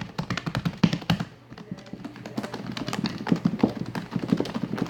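Rapid, irregular clicking and tapping, with a lull of about a second near the middle.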